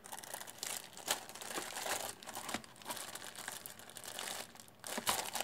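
Hands rummaging through a box of electrolytic capacitors: rustling with many small irregular clicks as parts are shifted about.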